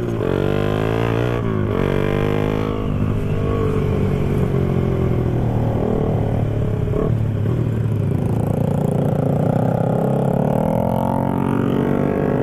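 Motorcycle engine pulling away under acceleration. Its pitch climbs, drops at a gear change, holds steady, then climbs again near the end.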